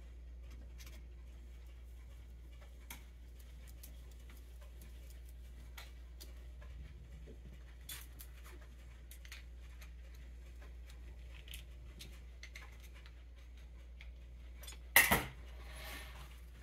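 Small metal Ford 8N carburetor parts and tools clicking and clinking on a desktop during hand reassembly, over a faint steady low hum. About fifteen seconds in comes one louder knock followed by a short rattle.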